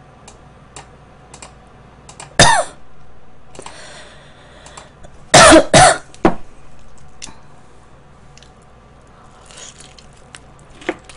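A woman coughing: one sharp cough about two and a half seconds in, then a double cough just past the middle, with a few small clicks in between.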